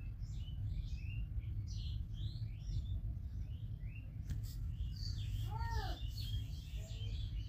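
Small birds chirping over and over in short falling notes, over a steady low hum. A sharp click comes about four seconds in, and a short arching call a second later.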